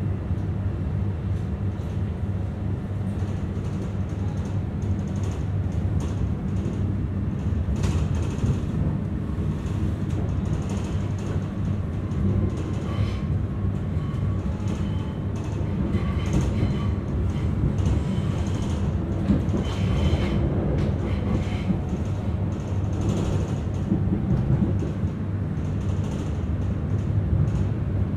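Electric commuter train running along the line, heard from inside the carriage: a steady low rumble with occasional sharp clicks from the wheels and track.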